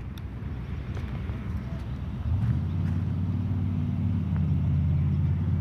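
A motor vehicle engine running with a steady low hum. It gets louder and steadier about two seconds in and holds there.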